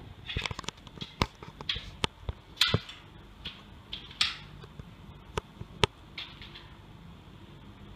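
Aluminium display-frame poles being handled and joined: a series of sharp metallic clicks and clinks, with short scraping rustles between them.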